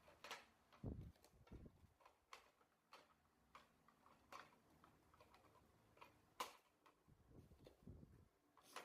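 Spice rack parts being handled during unboxing and assembly: faint, irregular clicks and light taps, with soft low thumps about a second in and again near the end.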